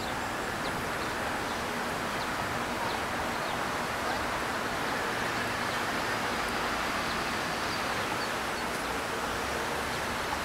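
Steady outdoor ambience: an even rushing hiss with faint, scattered short high chirps.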